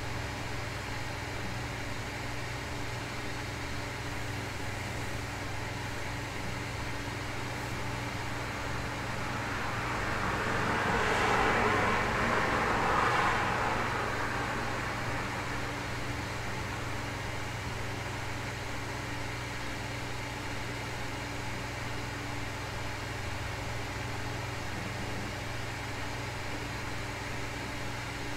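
A car passing by, its noise swelling for a few seconds about halfway through and then fading away, over a steady low hum and hiss of room noise.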